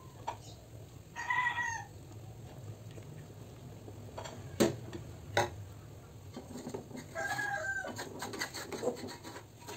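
A chicken calling twice: a short pitched call about a second in and another near the end. Two sharp knocks come in between.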